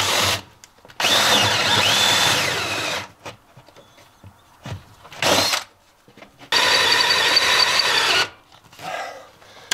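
Power drill boring into a wooden floor, running in several bursts of a second or two with short pauses between.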